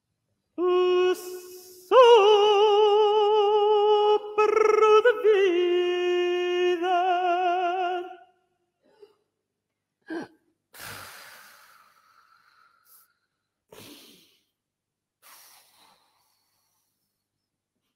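A voice singing long held notes with a wavering vibrato, stepping to a new pitch a few times. It stops about eight seconds in, and a few short breathy gasps and huffs follow.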